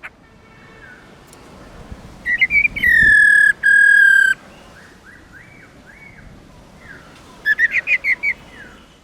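Black-throated laughingthrush (Garrulax chinensis) calling: a few quick notes, then two long, loud, level whistles, then softer falling notes and a quick run of notes near the end.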